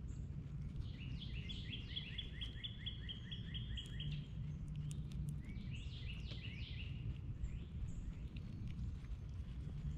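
A songbird sings two phrases, each a quick run of repeated down-slurred notes at about four a second, over a steady low background rumble.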